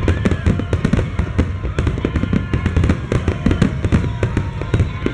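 Aerial firework shells bursting in a rapid barrage: many sharp bangs overlapping several times a second over a continuous low rumble.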